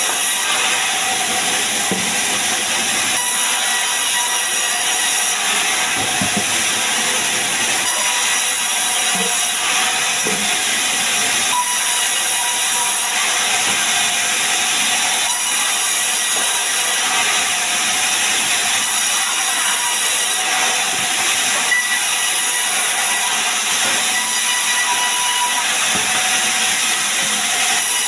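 Sawmill band saw cutting sengon (albizia) logs that are pushed by hand through the blade: a steady hissing rasp of the blade in the wood, with faint thin whining tones.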